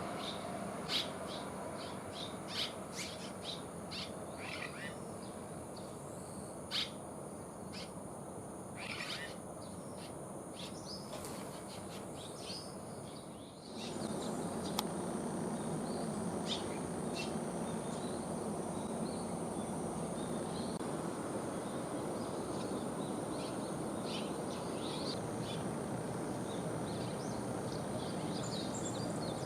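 Red-rumped swallows giving short, scattered chirps over a steady outdoor background hiss. The background changes abruptly about fourteen seconds in.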